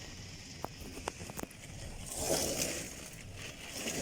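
Heavy rain hissing steadily in a storm, with a few sharp ticks about a second in and a surge of rushing noise a little after the halfway point.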